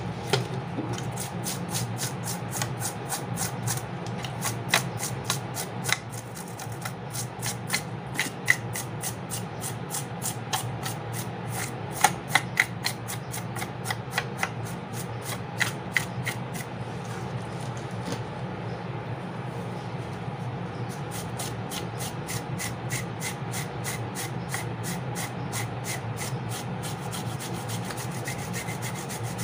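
A brush scrubbing the solder side of a refrigerator inverter circuit board in quick back-and-forth strokes, several a second, to clean off burnt residue. The strokes thin out about two thirds of the way through, then pick up again.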